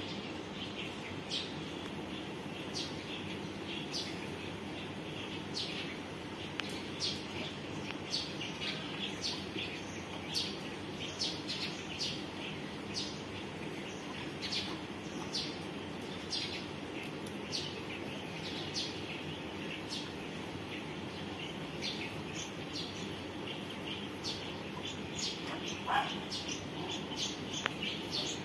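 Small birds chirping, short high chirps about once or twice a second, over steady low background noise. Near the end there is one lower call.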